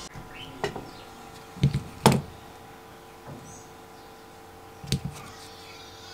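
A few sharp knocks and clicks of tools and the drill being handled on a workbench, the loudest about two seconds in.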